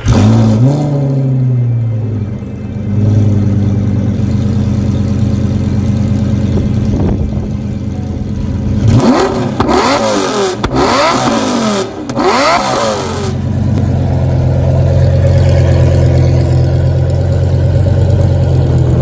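Car engine with a home-fabricated 2.5-inch custom exhaust starting up with a quick flare, then idling steadily. About halfway through it takes several sharp throttle revs before settling back to idle.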